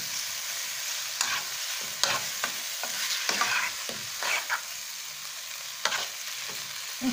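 Minced pork and beef frying in a little oil in a pan, sizzling steadily, while it is stirred and broken up with irregular scraping strokes against the pan.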